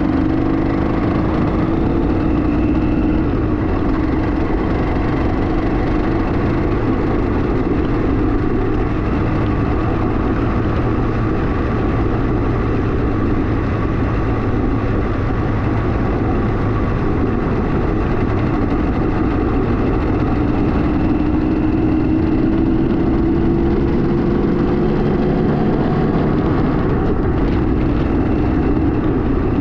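Kawasaki KMX200's two-stroke single-cylinder engine running steadily under way, over a constant rushing noise; the engine note climbs a little about two-thirds of the way through.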